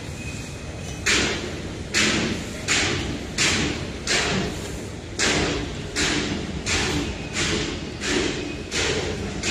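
Footsteps on concrete close to the microphone, a person walking at a steady pace of about one step every 0.7 s. The steps start about a second in and pause briefly just past the middle.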